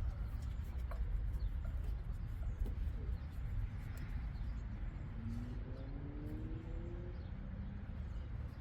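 Light clicks and rustles of spark plug wires being handled over a steady low rumble, with a short run of faint rising squeaks about five seconds in.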